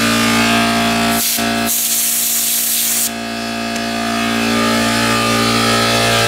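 Compressed-air blow gun hissing in two bursts, a short one about a second in and a longer one lasting over a second, as it blows through a motorcycle's Nissin rear brake master cylinder to clear a suspected blockage. An air compressor runs with a steady hum throughout.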